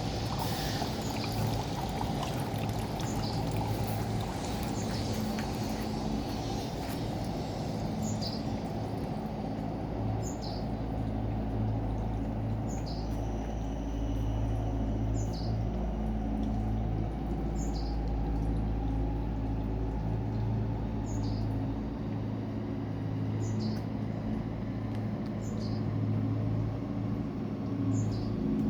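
Steady low hum of the city, with a short high two-note chirp that repeats at an even pace about every two and a half seconds from about eight seconds in.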